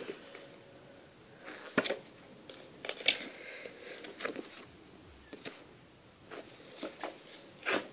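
A paper booklet being handled and its pages turned: a scattering of short, soft rustles and crackles, about one every second.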